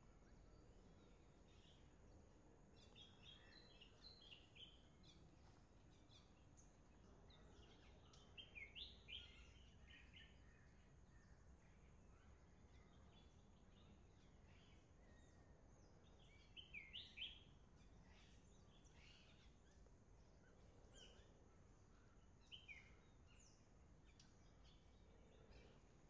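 Faint songbird calls: short, high, downward-sweeping chirps in small clusters every few seconds, over a faint steady low rumble.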